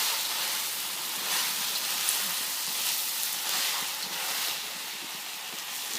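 Beef chow fun sizzling in a hot wok as it is stirred, a steady frying hiss that swells and eases.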